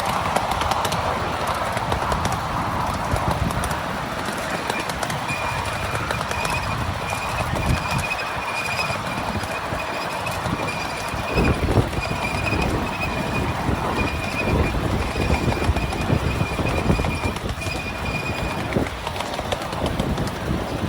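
Miniature railway train running on its track, with the wheels knocking over the rail joints. A thin, high-pitched squeal, broken into short stretches, runs from about five seconds in until near the end.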